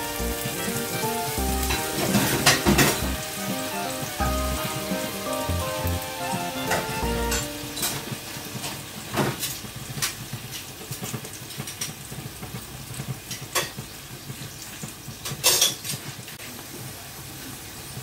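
Tomato, onion and fish sauce sizzling in oil in a frying pan, with several sharp clinks of a metal spoon against the pan as it is stirred. Background music plays for the first several seconds, then stops.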